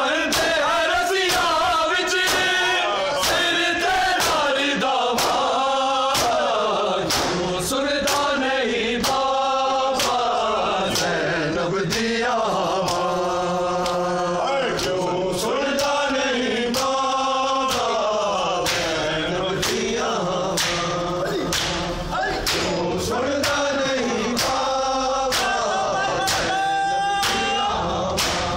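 Men's chorus chanting a noha in unison, with matam: many hands slapping bare chests together in a regular beat, about once a second.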